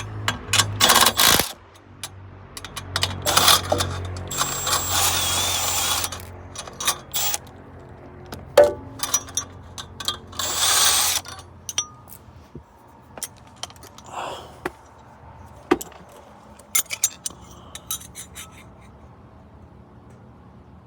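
Metal tools clinking and knocking during work on a truck's exhaust, with several short loud bursts of a power tool in the first half.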